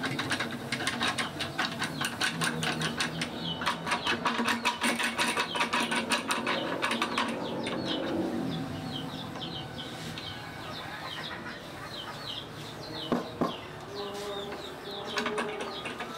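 Rapid clicking and rattling as the wooden handwheels of a homemade Moxon vise are spun along their threaded rods, thinning out about halfway through, with two light knocks later. Birds chirp in the background.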